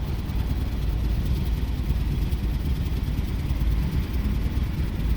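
Jeep Commander's 4.7-litre V8 idling with a steady low rumble. The engine is misfiring: the scan tool logs a random misfire (P0300), with cylinder 6 named.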